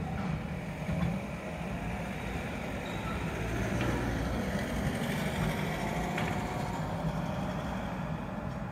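Street traffic at a tram junction: a low-floor tram moving off into the distance and a delivery truck's engine rumbling as it drives past near the end.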